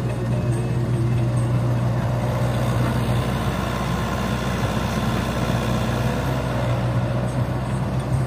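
Heavy diesel engine of an excavator or dump truck running steadily, a low even hum with no change in speed.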